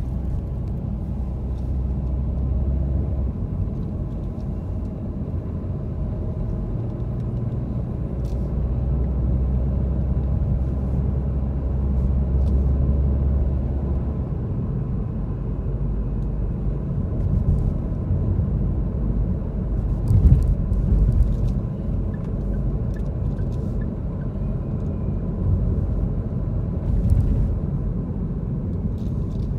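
Car driving through city traffic: a steady low rumble of engine and tyre noise with a low drone that comes and goes. A few brief knocks come about twenty seconds in and again near the end.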